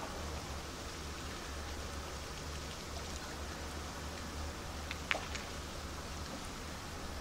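Large cruise ship gliding slowly past close by: a steady low hum from its engines under an even hiss of ventilation and water noise. A short sharp sound cuts through about five seconds in.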